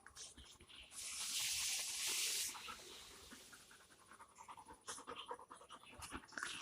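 A pet dog panting and breathing, with one long hiss from about one to two and a half seconds in, and scattered small clicks.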